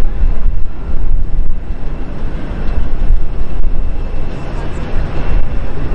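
Twin-engine jet airliner's engines at takeoff thrust as it lifts off and climbs away: a loud, dense rumble with heavy low end that swells and dips.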